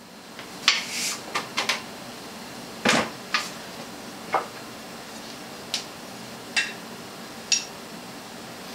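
Small tools and printer parts, a screwdriver and the plastic filament spool holder pieces, set down and picked up on a glass tabletop: about ten scattered clicks and knocks, the loudest about three seconds in.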